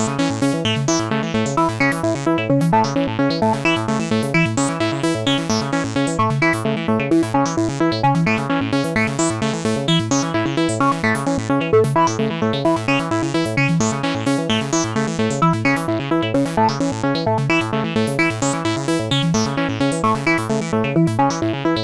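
Synthesizer ringtone made with FL Studio's Sytrus synth: an electronic melody of fast, evenly repeating notes in a steady loop.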